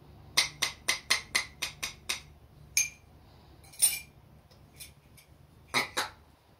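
Metal spoon clinking against the inside of a ceramic mug as a small child stirs: a quick run of about eight clinks in two seconds, then a few single clinks spaced apart, the last two close together.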